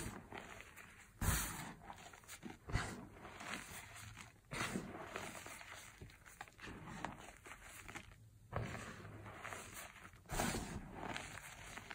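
Hands squeezing and crumbling a heap of powdered gym chalk: soft, irregular crunching and crackling, with louder crunches about a second in and near the end.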